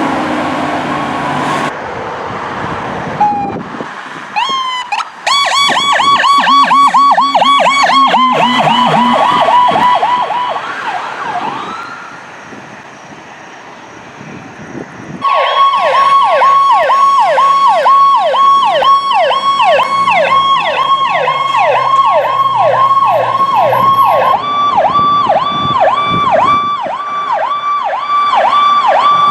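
Emergency vehicle sirens sounding the Powercall tone, a fast whoop that sweeps down and back up about two to three times a second, through several short clips in a row. A quieter stretch of road and engine noise comes near the middle before the siren returns loud.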